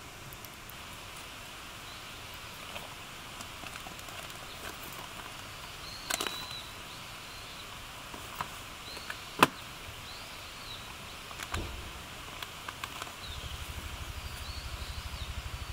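Wood fire in a fire pit, crackling with a few sharp pops, over a steady outdoor hiss with faint bird chirps. A low, rapid throbbing comes in near the end.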